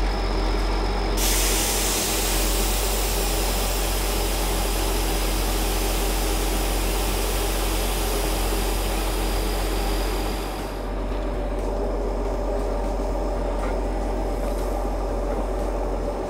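Plasser GRM3000T track machine's engine running steadily, with a loud hiss of air that starts abruptly about a second in and cuts off about eleven seconds in, as the front buggy is lowered onto the rail.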